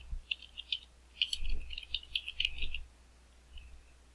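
Computer keyboard typing: a quick run of key clicks for most of the first three seconds, then it stops.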